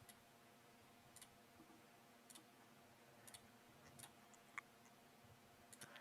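Faint computer mouse clicks, about one a second at uneven spacing, in near silence, with one brief high blip a little past the middle.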